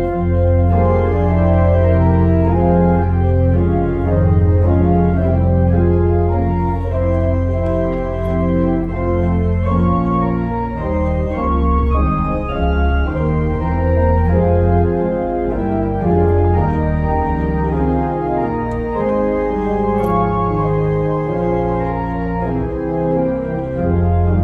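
Church organ played from a multi-manual console: full sustained chords over a held low pedal note, which gives way about ten seconds in to a moving bass line under the chords.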